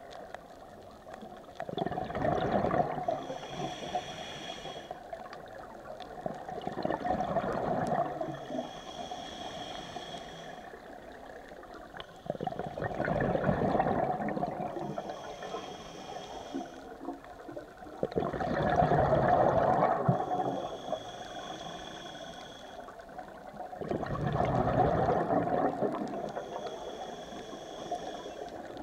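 Scuba diver breathing through a demand regulator underwater: a hissing, whistly inhale, then a louder burble of exhaled bubbles. Five breaths, about one every six seconds.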